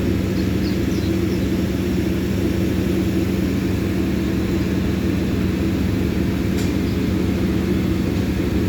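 Generator engine running steadily for the tower crane, a constant low engine drone with a steady hum.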